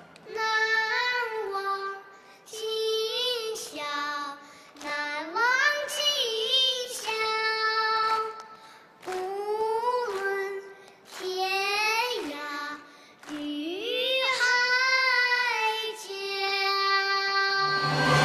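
A high solo voice singing unaccompanied, in about seven short phrases with brief pauses between them, some notes sliding up in pitch.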